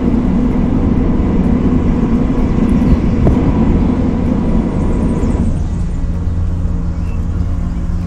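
Steady low drone of boat motors, with a thin high whine over it that stops about five and a half seconds in, after which the drone carries on lower.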